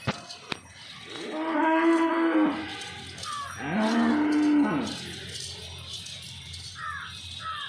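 A cow mooing twice, two long calls each lasting over a second, with a short pause between them.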